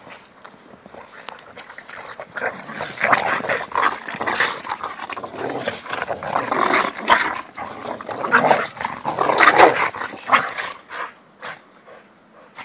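A Boxer and a Boston Terrier play-fighting in snow: a dense run of rough play growls and snarls that starts about two seconds in, is loudest near the middle and again a little before the end, then dies away.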